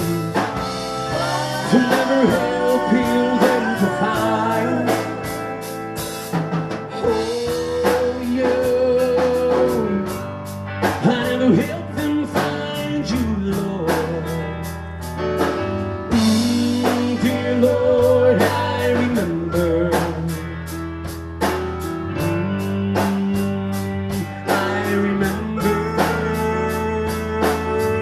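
Background music: a wordless passage of a blues-rock song, with bending lead guitar lines over bass and a steady drum beat.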